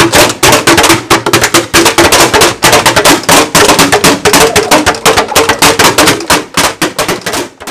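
Empty plastic water bottles being shaken, squeezed and struck in quick succession, making a fast run of loud crackles and pops as mock firecrackers; it stops suddenly just before the end.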